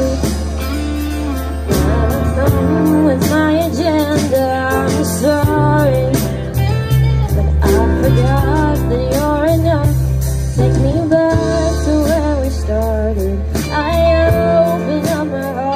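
Live band playing a song: a woman singing over guitars, bass, drums and keyboard.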